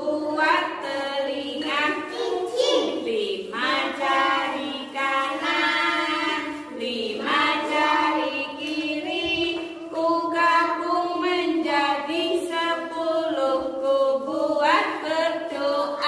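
A woman and young children singing a children's action song together, voices only.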